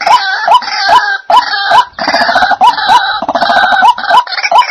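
White-breasted waterhen calling: a rapid, unbroken series of harsh croaking notes, about three a second, each hooking upward in pitch at its end.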